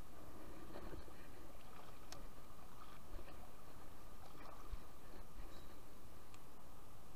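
Shallow river water running steadily over stones, with a few faint clicks.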